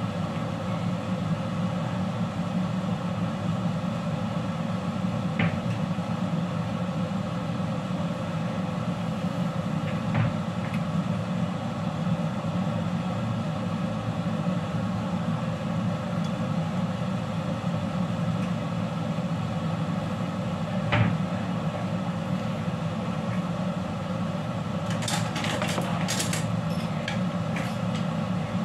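Steady rushing hum of a gas stove burner on high under a carbon-steel wok, with a few single light knocks. Near the end, a quick run of sharp clicks and clatter.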